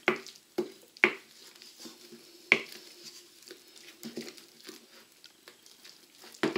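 Wooden spoon stirring thick cake batter in a glass bowl, the spoon knocking irregularly against the glass. The sharpest knocks come right at the start, about a second in, about two and a half seconds in and near the end.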